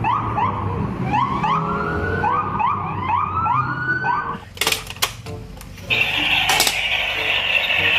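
Electronic siren of a battery-powered toy military vehicle: a rapid series of short rising whoops that stops about four seconds in. A few clicks follow, then a steady high hiss.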